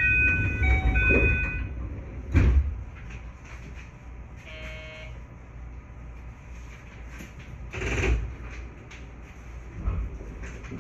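Doors of a JR West 221 series train closing at a station: an electronic chime of a few stepped tones, then the doors sliding shut with a heavy thump. A short buzzer tone follows a couple of seconds later, and there is a brief hiss later on.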